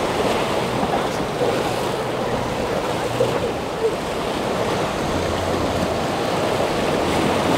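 Waves and rough water rushing, with wind on the microphone; a low steady boat-engine hum comes in about five seconds in.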